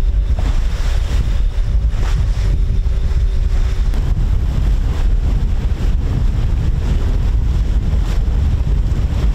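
Wind buffeting the microphone over water rushing and churning past the hull of a sailing catamaran underway. The sound is loud and steady, with a deep rumble.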